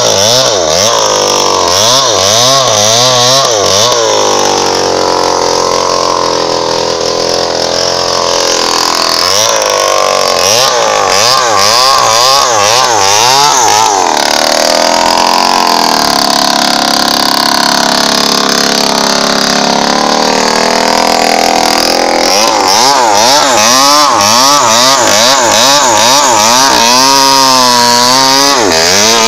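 Two-stroke Falcon chainsaw running at high revs while cutting across a felled teak trunk. Its engine note wavers up and down under load in stretches, with steadier, higher-pitched spells in between.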